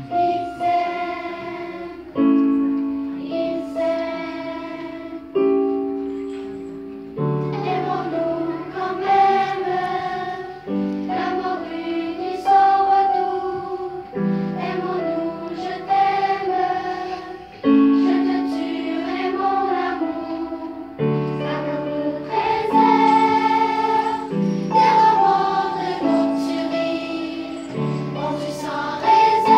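Children's choir singing a song, accompanied by a digital piano that strikes new chords every few seconds.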